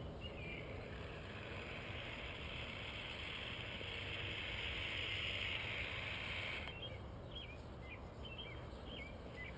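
An aerosol can of expanding spray foam hissing steadily as it tops off a plastic soda bottle, cutting off about two-thirds of the way through. Birds chirp after it stops.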